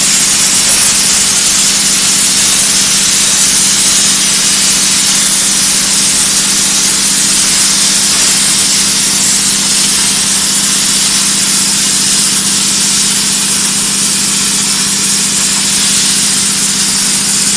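CNC plasma torch arc cutting sheet metal: a loud, steady hiss with a constant low hum beneath it.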